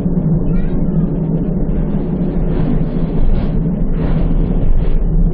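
Končar NT 2200 tram running along the line, with a steady low hum and a constant rumble of the running gear.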